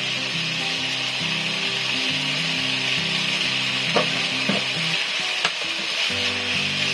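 Vegetables and glass noodles sizzling steadily as they are stir-fried in a frying pan, with utensils clicking against the pan a few times around the middle. Soft background music with a slow stepping melody plays underneath.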